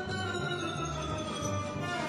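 Orchestral background music: held string notes over a low, pulsing accompaniment.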